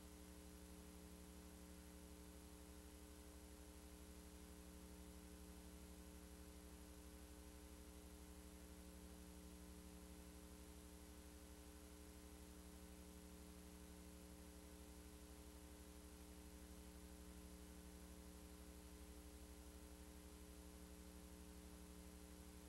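Near silence with a faint, steady electrical hum made of several steady tones under a light hiss.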